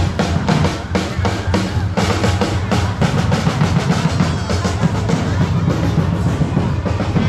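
Drums played in a fast, steady rhythm, with a deep bass drum under quick, sharp strokes.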